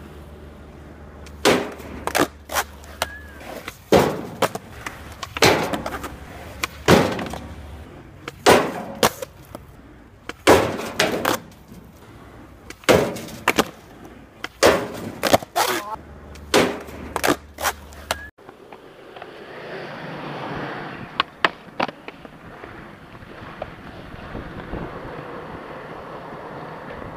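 Skateboard impacts: tail pops, wheels and deck slapping down and clattering, in quick clusters every one to two seconds. About two-thirds of the way in, the impacts give way to skateboard wheels rolling steadily on asphalt, with a few clicks.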